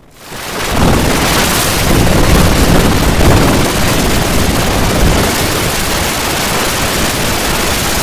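Loud, harsh static-like rushing noise spread evenly across all pitches with no tune or tone in it, swelling in over the first second, then holding steady.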